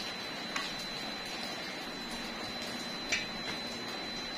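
Steady running noise of the refrigeration machinery in a compressor room, with a thin high whine throughout and a couple of light clicks about half a second in and about three seconds in.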